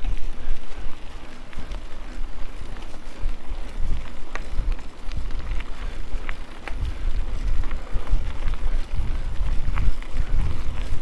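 Wind buffeting the microphone during a mountain bike ride on a trail, a loud uneven rumble, with a few sharp clicks and rattles from the bike.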